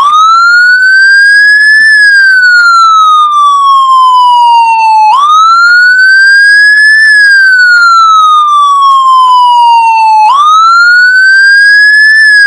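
Loud electronic siren wailing: the pitch rises over about two seconds, then falls slowly over about three, three times over.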